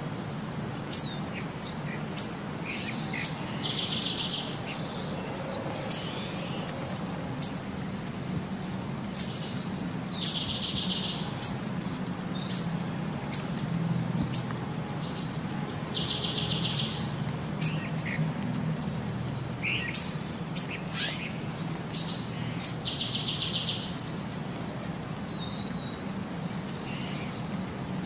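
Birds chirping and whistling in short, sharp calls. The same phrase comes back about every six and a half seconds, like a looped birdsong recording, over a low steady hum.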